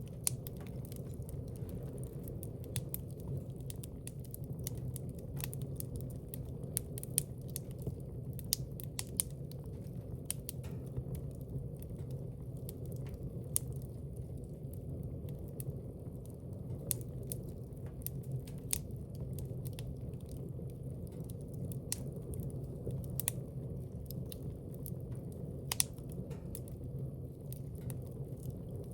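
Fire burning in a fireplace: a steady low rumble of flames with irregular crackles and sharp pops, a few of them standing out louder.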